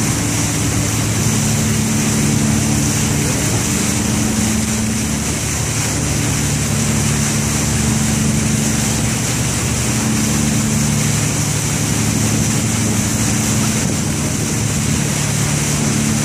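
Tour boat's engine running steadily under way, a low hum that swells and fades every few seconds, under a constant rush of wind and water.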